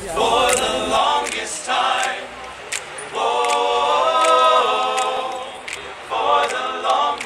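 Male a cappella group singing in close harmony: a few short phrases, then a long held chord in the middle, with sharp clicks now and then.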